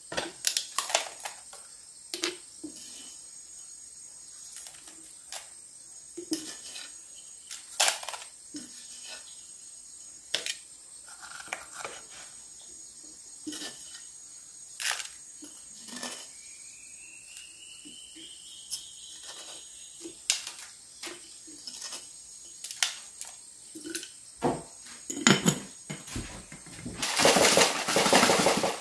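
Scattered light knocks and clatter from objects being handled, with a faint rising squeak past the middle and a louder rush of noise near the end.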